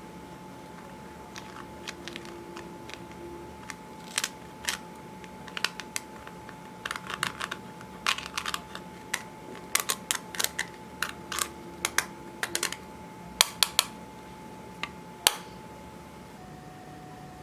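Clear slime with eyeshadow mixed in being pressed and stretched by hand, giving irregular sharp sticky clicks and pops, some in quick clusters, the loudest near the end. A faint steady hum runs underneath.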